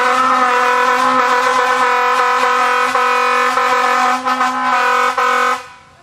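An air horn sounds one long, steady, loud blast that dies away near the end.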